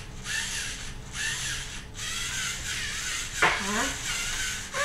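Lego Mindstorms NXT scorpion robot's servo motors whirring and its plastic gears and legs clattering in repeated strokes, about one a second, each with a rising-and-falling whine. A sharp click about three and a half seconds in.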